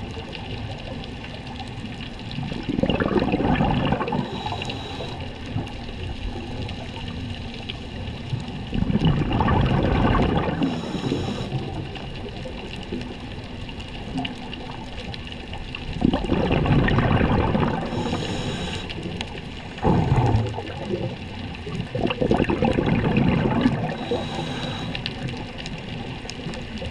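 Scuba diver breathing through a regulator underwater: about four breaths, each a burst of exhaled bubbles lasting about two seconds, followed by a short hiss as the next breath is drawn.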